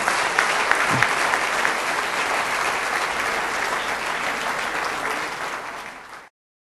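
Audience applauding, a dense steady clapping that fades about five seconds in and then cuts off abruptly to silence.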